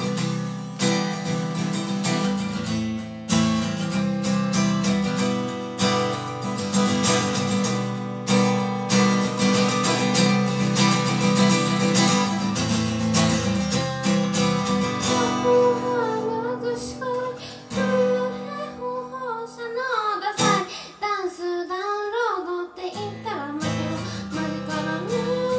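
Steel-string acoustic guitar strummed steadily for the first half, then a woman's voice singing over it; partway into the singing the guitar drops out briefly, leaving the voice alone, before the strumming comes back in near the end.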